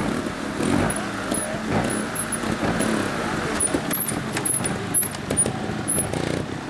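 A trial motorcycle's engine running and revving as it is ridden over a rock section.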